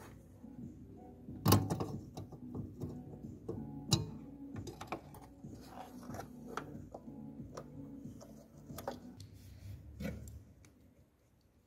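Hands removing an H7 low-beam bulb from the back of a car headlight and separating it from its connector: scattered clicks and knocks, the two loudest about one and a half and four seconds in.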